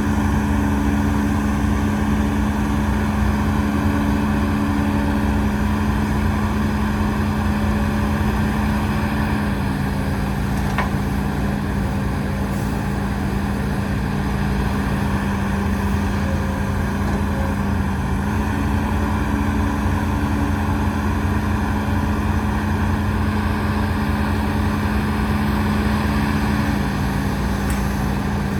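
Hidromek HMK230LC excavator's diesel engine running steadily under work, its pitch dropping slightly about ten seconds in, rising again around eighteen seconds, and dropping once more near the end.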